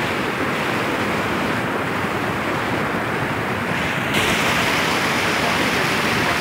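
Fast mountain stream rushing over rocks: a steady, loud wash of whitewater. About four seconds in it turns brighter and a little louder, as a bigger run of water around a boulder comes close.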